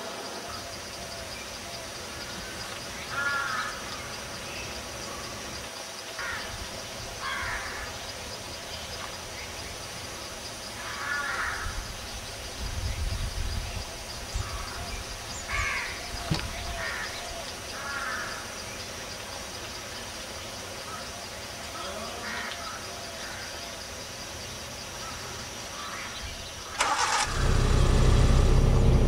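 Steady outdoor background hiss with scattered short chirps. About 27 seconds in, a vehicle engine starts with a sudden loud burst and then runs with a steady low rumble.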